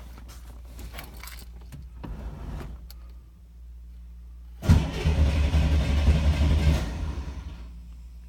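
A car engine that is hard to start. A few light clicks and rattles come first, then the engine cranks loudly for about three seconds and fades away without settling into a run.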